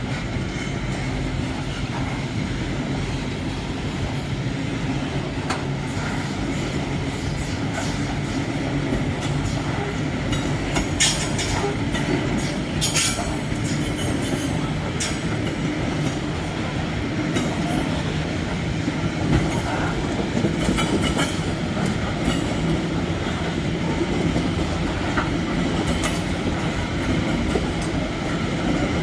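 Metre-gauge freight train rolling past: a steady rumble of wagons on the rails with wheel clatter and short, high wheel squeals, sharpest about eleven to thirteen seconds in.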